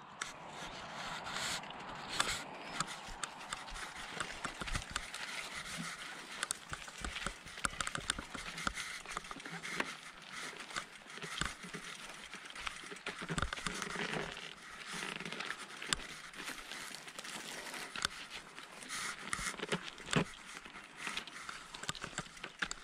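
Bicycle riding slowly over a rough, stony dirt trail: tyres crunching on dirt and gravel, with frequent small clicks and rattles from the bike as it jolts over stones.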